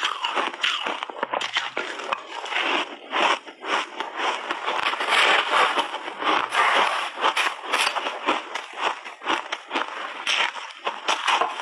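Mouthfuls of refrozen pink shaved ice being chewed, a dense, continuous run of crunches and crackles, with a spoon digging into the ice in the container.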